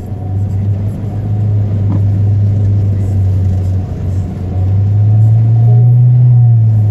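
Car engine drone heard from inside the cabin while driving; the drone rises a little in pitch about five seconds in and settles back near the end.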